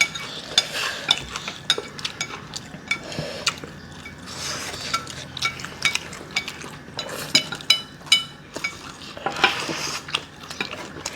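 Forks clinking and scraping against plates of ramen noodles as several people eat, in a steady irregular patter of small clicks with a few brief scraping swishes.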